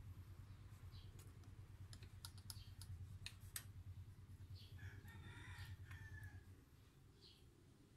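Faint metallic clicks and scrapes as a stainless motorcycle muffler canister is worked off its exhaust link pipe, over a low steady hum that fades about six and a half seconds in. A rooster crows faintly about five seconds in.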